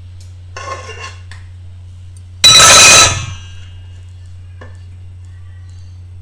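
A spatula scraping and knocking against a frying pan as chilli crab and its sauce are scraped out into a serving bowl: a short scrape about half a second in, then a loud, harsh clatter lasting about half a second midway. A steady low hum runs underneath.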